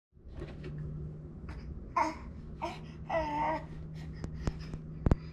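Infant babbling: three short pitched vocal sounds starting about two seconds in, with a few sharp knocks near the end, over a steady low hum.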